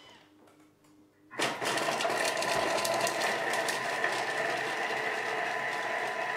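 Thermomix TM6 chopping shallots at speed 5: its motor and blades start about a second and a half in and run steadily.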